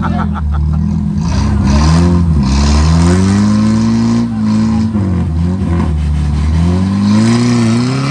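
Two 4x4 engines revving hard together, their pitch rising and dipping, as one vehicle tows the other out of deep mud on a strap, with a hiss of tires spinning in the mud from about a second in.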